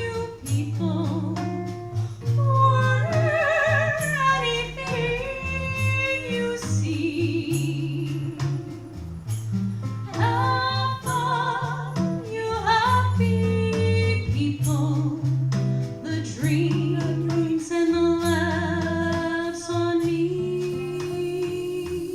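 Small jazz band playing live: a melody line with vibrato over low guitar notes and light percussion.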